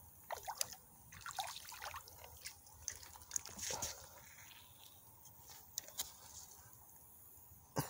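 A hooked channel catfish splashing at the river's surface as it is reeled in: a few small splashes, then a bigger splash about four seconds in as it is lifted clear of the water, then a few drips.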